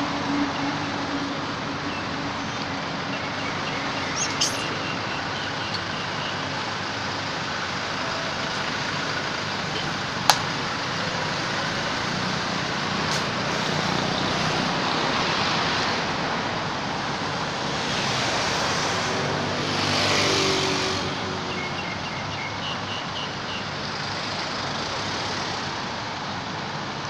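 Steady road traffic noise, swelling as a vehicle passes about twenty seconds in. A single sharp click about ten seconds in.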